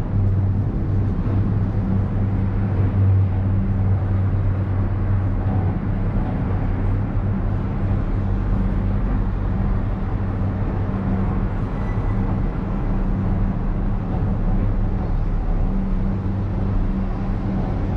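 Ngong Ping 360 gondola cable car riding along its cable, heard from inside the cabin: a steady low hum over an even rushing noise.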